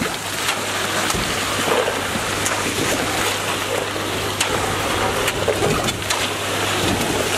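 Wet concrete sloshing and scraping as it is spread with hoes during a slab pour, over a steady hum from the concrete pump's engine. Occasional sharp clinks of metal tools come through.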